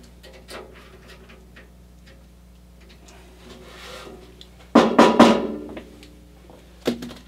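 Light clicks and taps of hands handling a metal computer case frame, then a loud, drum-like rattling burst about five seconds in and a single sharp knock near the end.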